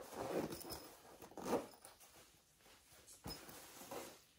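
Rustling and scraping of a hip-seat baby carrier's fabric and straps being handled, in a few short bursts, with one sharp click a little after three seconds in.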